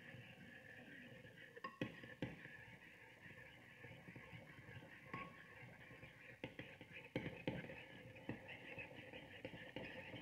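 Metal spoon stirring barbecue sauce and maple syrup in a ceramic bowl, the spoon clinking sharply against the bowl several times, over a steady faint hiss.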